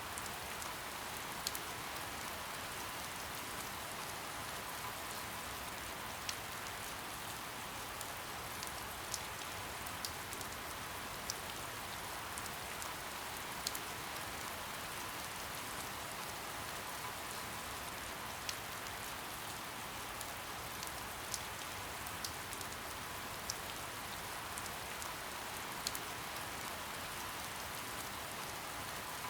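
Steady soft rain falling, an even hiss with scattered individual drops ticking sharply on a surface.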